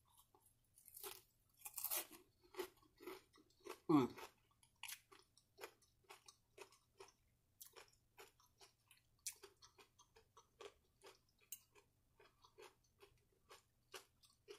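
Close-miked chewing of a mouthful of crispy fried catfish, the breading crunching, about two chews a second. About four seconds in comes a louder short vocal sound that falls in pitch.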